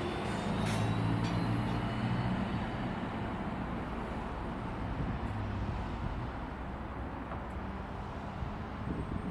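Steady vehicle rumble, with a low hum that fades out about five seconds in.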